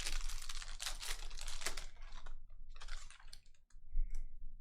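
Trading cards being handled by hand: a fast run of papery flicks and rustles for about two seconds as cards are slid and flicked through, then two shorter bursts.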